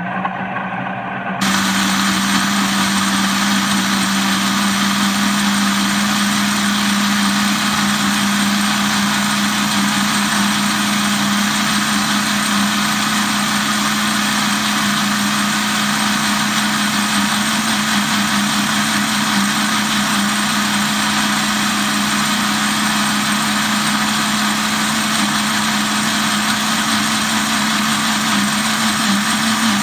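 Countertop electric blender running steadily, blending milk and garlic for garlic sauce, with a steady motor hum; it grows louder about a second and a half in.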